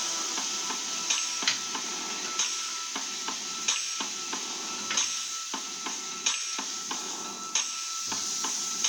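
Kitchen utensils knocking sharply on wood at uneven intervals, about once a second, over a steady hiss.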